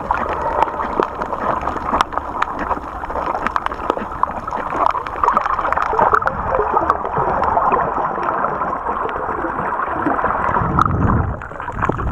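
Muffled underwater sound picked up by a camera in its waterproof housing: a steady watery rush with many sharp clicks scattered through it. A low surge swells near the end.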